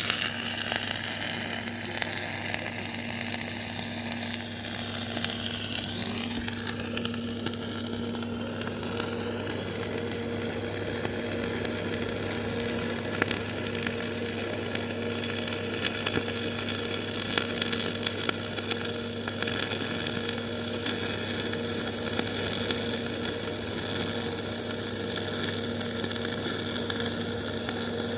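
MIG/MAG welding arc crackling steadily on a water panel, with a low steady hum underneath.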